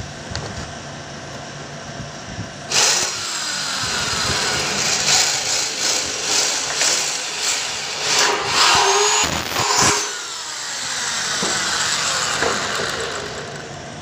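Electric drill with a twist bit boring through sheet-steel cable tray. It starts hard about three seconds in, its whine rising and falling with scraping of the bit in the metal, and eases off about ten seconds in.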